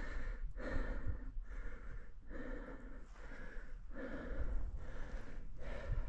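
A hiker breathing hard and fast, close to the microphone: rapid, rhythmic in-and-out breaths about one every second, from the exertion of a steep uphill climb.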